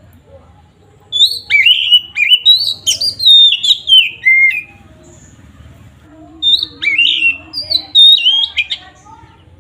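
Oriental magpie-robin (kacer) singing in full voice: two loud bursts of quick, sliding whistled notes, the first about a second in and the second about six seconds in.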